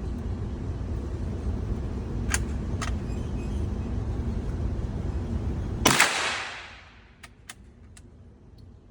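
One shot from a single-shot bolt-action .22 LR rifle about six seconds in, a sharp crack that rings off over about a second. It comes over a steady low rumble, with a few light clicks before and after.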